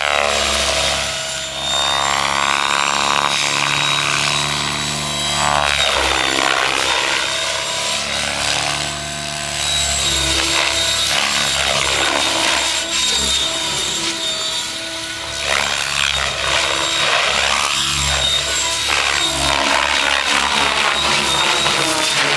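Mikado Logo 600 electric RC helicopter flying 3D: rotor blades chopping over the whine of the electric motor and gears. The pitch keeps bending down and up as the blades load in the manoeuvres and as the helicopter swoops past.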